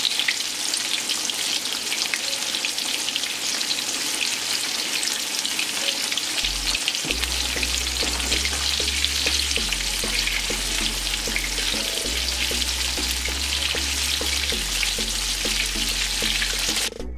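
Breaded pork chop frying in hot oil in a cast-iron skillet: a steady, dense bubbling crackle.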